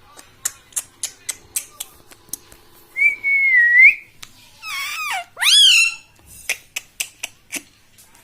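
Pet ring-necked parakeet calling: a run of short sharp chips, a wavering whistle about three seconds in, then a harsh squawk and a loud rising-and-falling whistle, followed by more chips.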